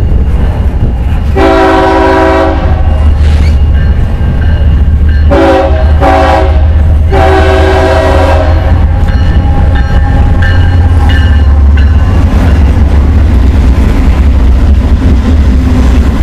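Freight train rumbling past with wheels clacking over the rails, while a diesel locomotive sounds its multi-note air horn for the grade crossing: a long blast, two short blasts and another long blast, then fainter horn notes.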